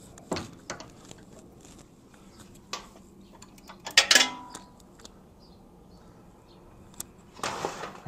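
Metal hand tools clinking while the new rear brake light switch is worked in with a combination wrench: a few light clicks, then a louder clatter with a short ring about four seconds in as a tool is handled on the lift table, and a brief scraping rustle near the end.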